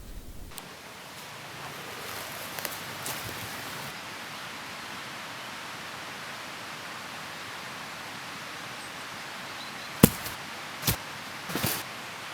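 Steady outdoor hiss with a few faint clicks, then several loud sharp snaps near the end.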